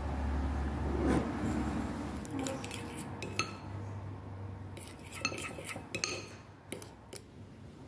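A spoon stirring melted dark chocolate in a ceramic bowl, clinking against the bowl's sides several times from about two and a half seconds in. A low hum runs under the first second or so.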